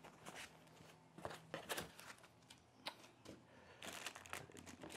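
Faint rustling, light taps and scraping of cardboard box flaps and the plastic wrap around a portable power station as hands work it inside its shipping box, with a denser rustle near the end.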